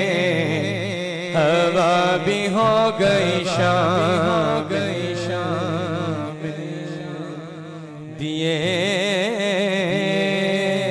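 Male naat reciter singing a long, wavering melodic line with heavy vibrato into a microphone, over a steady low drone; the voice drops back for a couple of seconds in the middle, then swells again.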